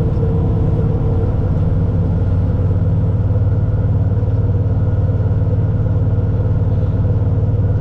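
Allis-Chalmers 7095 tractor's engine running steadily under load while it drives a pull-type forage harvester chopping hay, heard from inside the insulated cab as a steady low hum.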